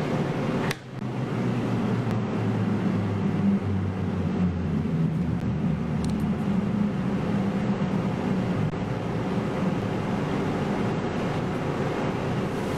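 Steady low rumble of background noise with a faint hum, broken by a short click and a brief dip just under a second in.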